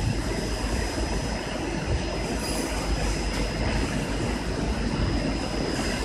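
Industrial 64-tray hot air rotary rack oven running: a steady mechanical rumble of its fan and turning rack, with a thin steady high whine over it.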